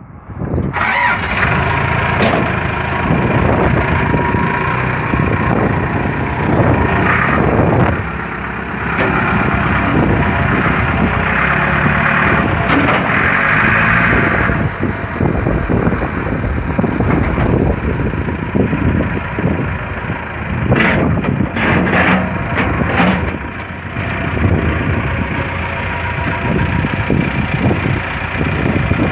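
Diesel engine of a Caterpillar 416B backhoe loader running, with a few clanks and knocks.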